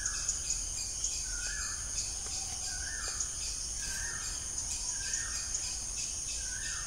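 Background ambience of insects trilling steadily, with a bird giving a short falling call about once a second.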